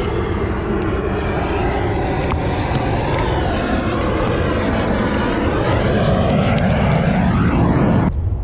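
A loud engine drone whose pitch lines slowly shift and sweep, swelling a little near the end, then cutting off suddenly just before the end.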